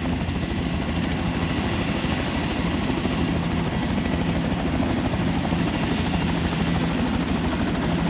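A helicopter flying very low. Its rotor beats in a fast, even chop under a steady high whine.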